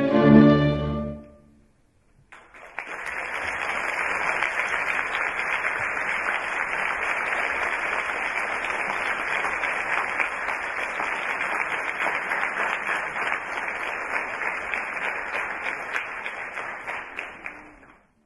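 Orchestral gavotte music ends on its closing chords about a second in; after a brief silence an audience applauds steadily for about fifteen seconds, dying away near the end.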